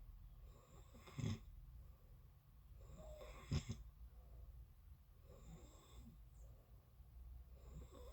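A person snoring in sleep, slow and rhythmic at about one breath every two seconds. Two snores, about a second in and about three and a half seconds in, are louder than the rest. The whole is faint.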